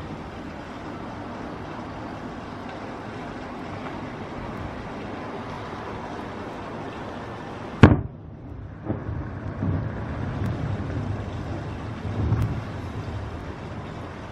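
Distant aerial fireworks display: a steady background hiss, then a sharp, loud bang about eight seconds in, followed by several low, muffled booms of shells bursting.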